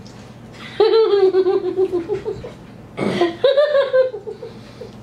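A woman laughing in two bouts of rapid, pulsing laughter, the first about a second in and the second about three seconds in.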